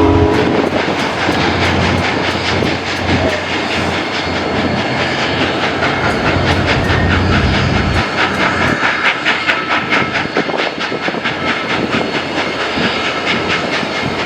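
Steam-hauled train under way behind Union Pacific Big Boy 4014, heard from one of its cars: a steady rolling rumble and hiss with a quick, even clicking through the middle stretch.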